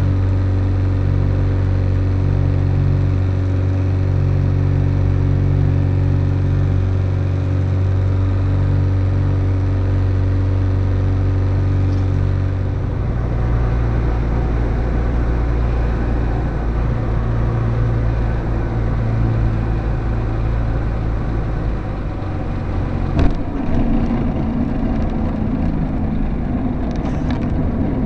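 Light aircraft's piston engine and propeller running steadily from inside the cockpit. About 13 seconds in the engine note changes to a lower, noisier sound on the landing approach and drops further as power comes off. A single sharp thump a little over 20 seconds in is followed by rumbling on the runway: the wheels touching down.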